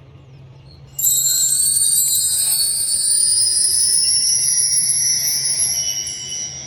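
A high, bell-like ringing sound effect that starts suddenly about a second in and slowly rises in pitch for several seconds, over a faint steady low hum.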